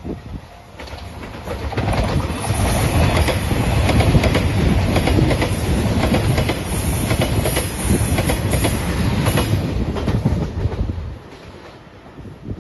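JR Shikoku 2700 series diesel limited express passing at speed, with a run of wheel clicks over the rail joints. It builds about two seconds in, stays loud for about nine seconds and drops away near the end.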